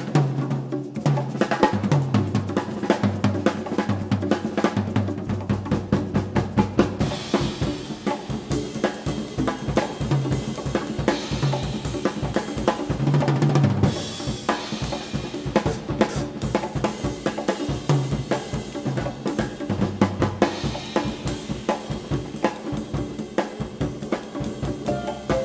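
Jazz drum solo on a Yamaha drum kit with congas: quick snare, tom and bass-drum strokes and rimshots, with a cymbal wash joining about seven seconds in.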